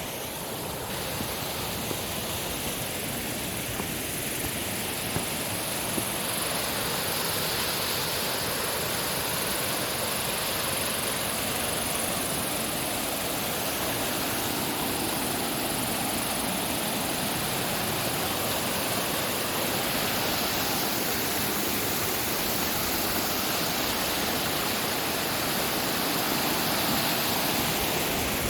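Waterfall rushing: a steady wash of falling water that grows gradually louder, with a few faint clicks about four to six seconds in.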